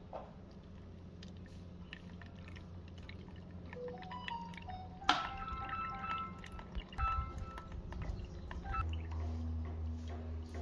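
Water dripping and trickling over a steady low hum, with a sharp click about five seconds in; near the end a louder low hum starts up and holds steady.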